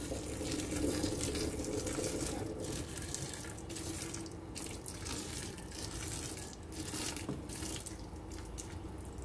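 Boiling water poured over canned ackee in a plastic colander, splashing and draining into a stainless steel sink, to rinse off the brine.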